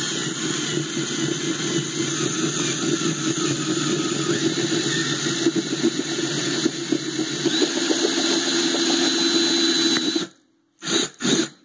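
Power drill running a step drill bit into the brass jaw of a welder's ground clamp, enlarging a hole for a bigger fastener. It runs steadily for about ten seconds, cuts off suddenly, then gives two short bursts near the end.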